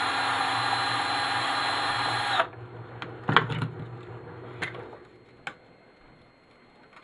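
Cordless drill with a square driver bit running at a steady speed to back out a power strip's screws, stopping about two and a half seconds in. A few light clicks and knocks follow.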